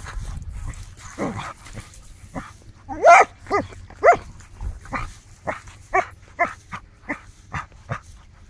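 Small dog barking while it digs: a falling whine about a second in, then short, high barks about two a second from about three seconds on, the first of them the loudest.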